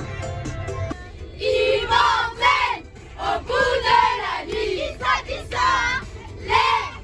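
A group of children singing and shouting a song together in loud phrases inside a coach. A music track cuts off about a second in, just before the singing starts.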